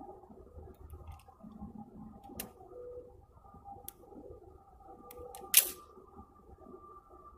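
Scattered sharp metallic clicks from handling the action of an Egyptian Hakim 7.92×57 mm semi-automatic rifle, with one louder snap about five and a half seconds in.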